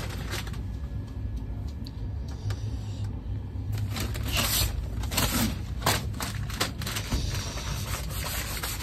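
Cotton bedsheets being handled and shaken out, the cloth rustling in irregular swishes that grow busier about four seconds in, over the steady low rumble of the moving train.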